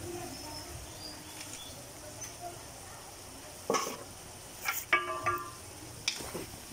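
Pork ribs and tomatoes sizzling in a wok, with a few sharp knocks that are loudest about four and five seconds in. A short pitched call sounds about five seconds in.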